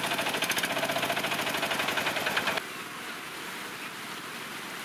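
A Piaggio Ape auto rickshaw's engine running close by with a fast, even beat. About two and a half seconds in it cuts off suddenly to a steady rush of flood water flowing over the road.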